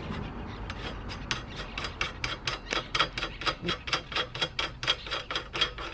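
A ratchet mechanism clicking steadily, about five sharp clicks a second.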